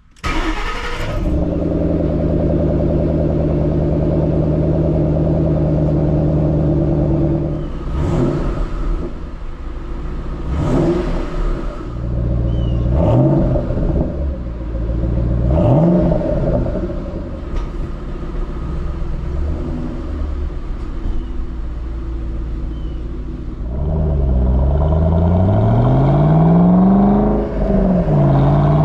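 Stock 2011 Shelby GT500's supercharged 5.4-litre V8 cold-starting, catching at once and settling into a steady fast idle. About eight seconds in it is blipped four times, each rev rising and falling back. Near the end the car pulls away under acceleration, the engine note rising, dropping at a gear change shortly before the end, and rising again.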